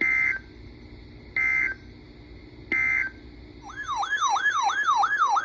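Three short, identical bursts of Emergency Alert System (SAME) data tones, the end-of-message code sent after an alert. They are followed by a loud electronic siren-like warble that sweeps quickly up and down, about three and a half times a second, and stops suddenly.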